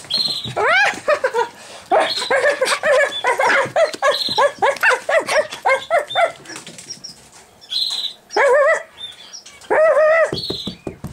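Pomeranian puppy barking and yipping excitedly during rough play, many short high-pitched calls in quick runs. Pet birds chirp at intervals alongside.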